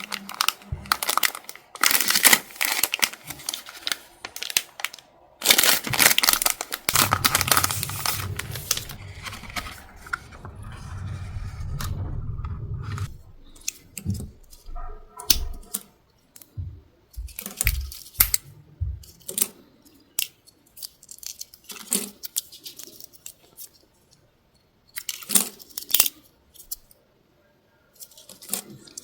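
Paper and plastic packaging of sticker and stamp sets being torn open and crinkled by hand, the loud rustling and tearing in the first several seconds. It gives way to scattered light taps and rustles as the items are handled.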